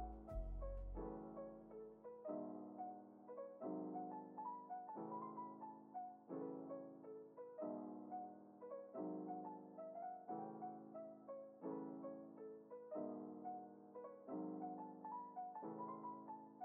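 Soft background piano music: a short pattern of repeated chords with a melody on top.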